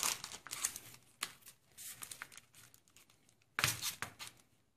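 Clear cellophane packets of scrapbook embellishments and a sticker sheet crinkling as they are handled and shuffled, with a louder rustle about three and a half seconds in.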